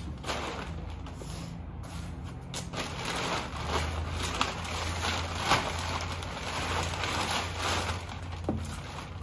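Black plastic trash-bag sheeting crinkling and rustling as it is pulled and spread out over a concrete floor, with a low steady hum underneath.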